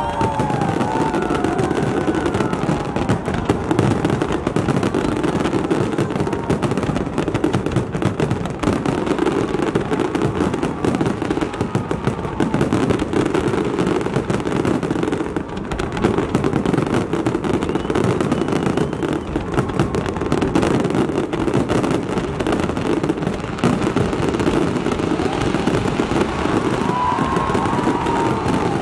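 Fireworks going off in a dense, continuous barrage, with rapid overlapping bangs and crackling and no pause. A few faint whistles glide up and down near the start and again near the end.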